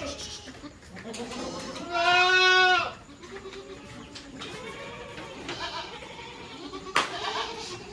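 Goat kids bleating, with one loud bleat lasting nearly a second about two seconds in and fainter bleats around it. A sharp click comes near the end.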